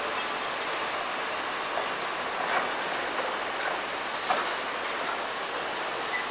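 Train running on the rails: a steady rolling noise of wheels and cars, with a few faint clicks and squeaks.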